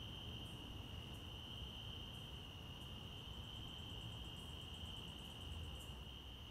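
Faint steady high-pitched whine with short bursts of rapid, very high ticking every second or so and a low rumble beneath: a quiet insect-like ambient sound bed.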